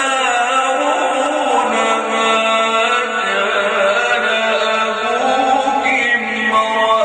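A male reciter chanting the Quran in the melodic, ornamented style, holding long notes that glide up and down in pitch.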